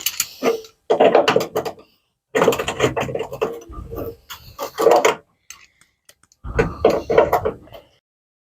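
Metal clinking and grating in irregular bursts as a snapped bolt, with a bar welded on its end, is worked back and forth out of an MGB's captive nut; rust on the bolt's thread is making it stiff.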